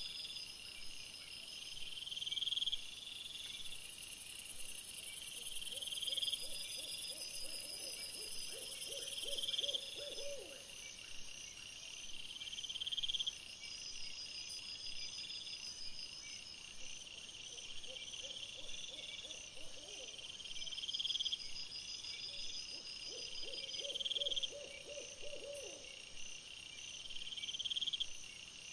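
Night animal calls: a short high call repeating about every two seconds, with a lower trilling call three times.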